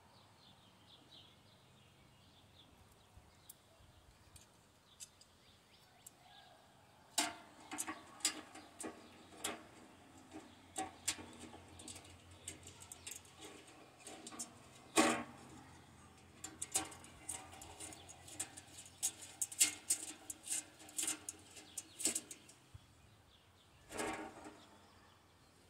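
Sheet-metal parts of a camping stove clinking and clattering as they are handled and slotted together, a run of sharp metallic clicks and knocks starting about seven seconds in and going on irregularly, with a last knock near the end.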